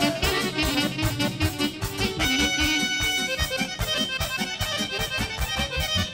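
Live folk band music: accordions and saxophone playing over a steady, fast drum beat, with held chords from about two seconds in.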